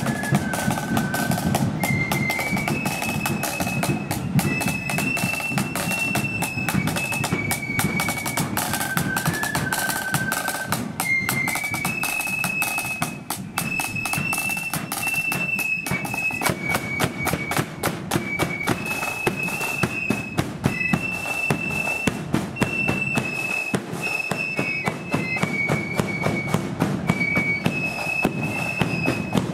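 Marching flute band playing a tune: a high single-line melody on the flutes over rapid snare drum rolls and a steady bass drum beat.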